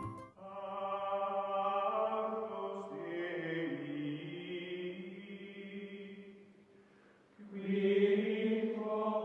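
Outro music of long, held chant-like vocal notes that shift slowly in pitch: one long phrase that fades out, then a second louder phrase near the end that cuts off suddenly.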